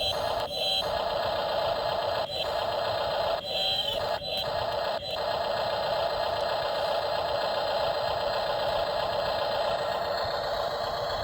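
A radio-controlled toy vehicle's electric motor whining steadily. It cuts out briefly several times in the first five seconds, then runs without a break.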